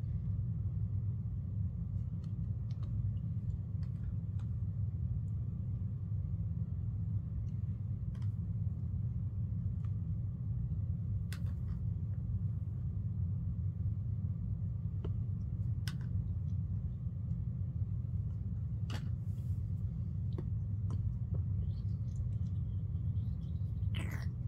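Steady low background rumble, with a few faint scattered clicks and taps.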